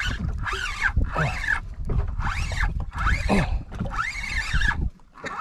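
Penn 4000 spinning reel squeaking with each turn of the handle as line is cranked in: a rising-and-falling squeal that repeats about every half second.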